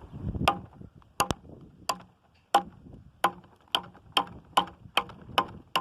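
Homemade railroad-spike tomahawk chopping with about a dozen sharp blows, roughly two a second and quickening toward the end. They are struck lightly: the tomahawk is not being swung hard, and its edge, forge-welded file steel, is cutting well.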